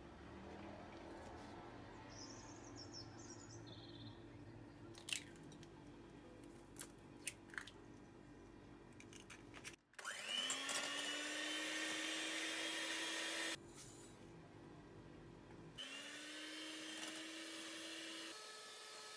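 Electric hand mixer whisking eggs in a glass bowl. Its motor starts with a rising whine and runs steadily about ten seconds in, and starts again the same way near sixteen seconds. Before that there is faint room noise with a few light clicks.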